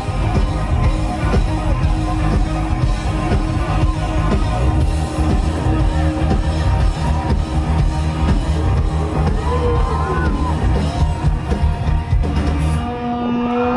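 Live rock band with drums, bass and guitars playing the final bars of a song at full volume. Near the end the band stops and the crowd yells and cheers.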